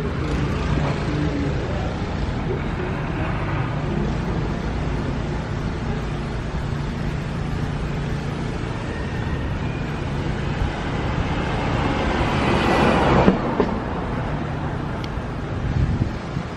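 Street traffic: a nearby engine runs steadily, then a vehicle passes close, loudest about thirteen seconds in.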